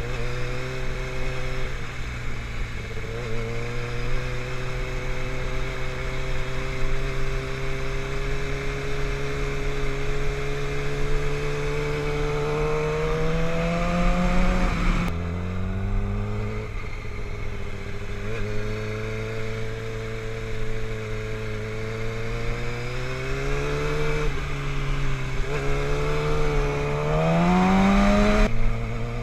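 Sport motorcycle engine heard from on board while riding, its pitch climbing slowly for about thirteen seconds and then dropping suddenly at a gear change about halfway through. It runs steadily, climbs again near the end, and drops at a second shift just before the end.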